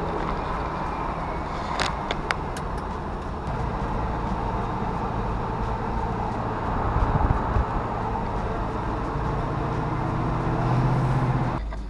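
LQ4 V8 in an LS-swapped Chevy Nova running under way, with road noise inside the cabin and a few light clicks about two seconds in. The engine note swells near the end, then drops off suddenly, as when the throttle is lifted.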